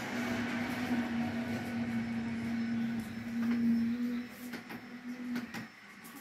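A steady, even-pitched hum with some hiss that stops about five and a half seconds in, then returns briefly and drops away, with a few sharp clicks near the end.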